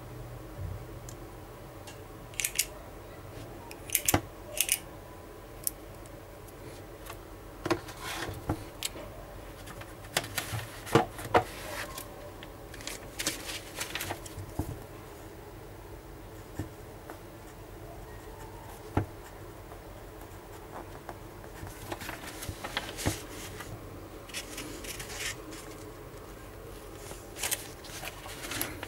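Scattered sharp clicks and short scratchy strokes as a Parker Jotter stainless steel ballpoint pen is handled and its tip drawn across a sheet of paper.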